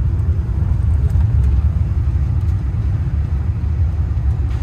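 Steady low rumble of the little tourist train running along, heard from on board.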